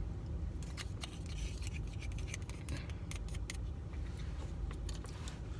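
Light clicks and scrapes of a utensil against a takeout food container while eating, over a steady low rumble.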